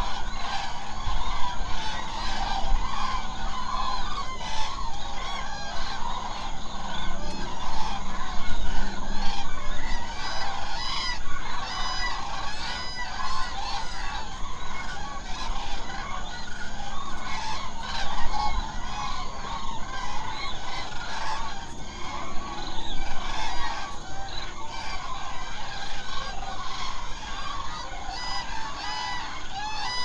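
A large flock of common cranes calling at their evening roost in shallow water: a dense, unbroken chorus of many overlapping calls.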